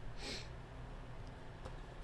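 A short sniff, then faint steady low room hum.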